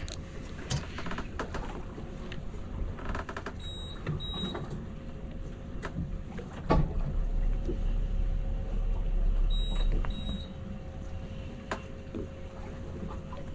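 Wind buffeting the microphone on a boat at sea, over a steady low rumble and hum, with scattered knocks. It gusts hardest about halfway through. Two pairs of short, high electronic beeps sound about four seconds in and again near ten seconds.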